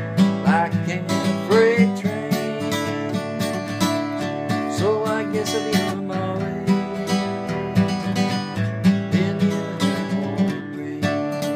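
Acoustic guitar strummed in a steady rhythm through an instrumental passage of a folk song, with a few short wordless sung notes over it.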